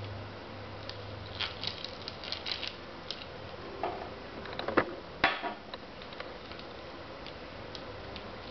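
Antique hand brace drill being handled: scattered metal clicks and small rattles, a cluster of them about a second and a half in and a few louder knocks around five seconds in.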